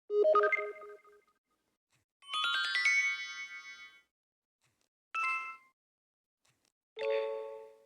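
LG phone notification and system tones played one after another: four short electronic chimes with silence between them, the second a rising run of notes that rings on for about two seconds.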